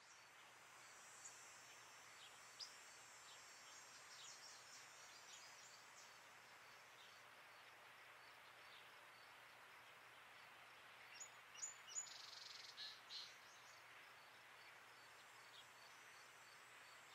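Faint outdoor ambience: a steady hiss with scattered short bird chirps, a few louder ones bunched together about eleven to thirteen seconds in, over a faint high ticking that repeats about twice a second.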